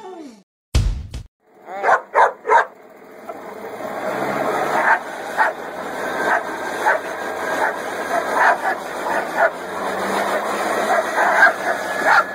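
Dog barking and yipping: three quick yelps, then a long run of repeated barks, with a short low thump shortly before them.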